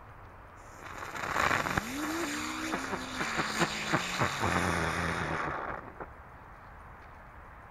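Wondertol ground-spinner firework burning: a hiss starts about a second in, then a whirring tone rises quickly and slowly drops in pitch as it spins, with several sharp crackles mixed in. It stops abruptly about six seconds in as the spinner burns out.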